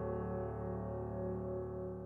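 Background music: a soft held chord that slowly fades.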